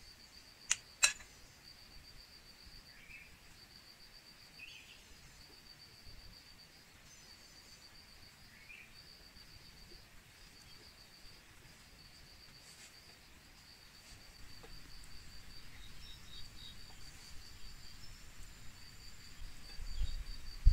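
An insect chirping in a steady run of rapid high-pitched pulses, with two sharp clicks about a second in, a few faint bird chirps, and a low rumble building near the end.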